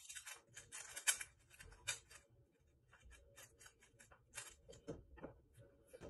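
3x3 plastic speedcube being scrambled by hand: a quick run of clicking layer turns, densest in the first two seconds, then sparser and more spaced out.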